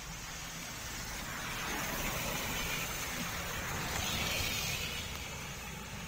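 A car driving past close by on a wet road: tyre hiss and engine noise swell to a peak about four seconds in, then fade.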